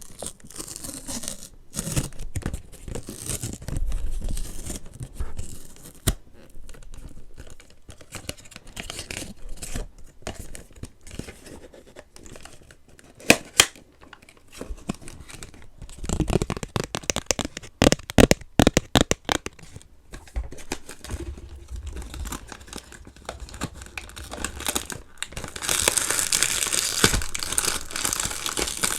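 Blind-box packaging being torn open and crinkled by hand: irregular tearing and crackling with scattered sharp clicks, a burst of snapping clicks about halfway through, and dense crinkling near the end.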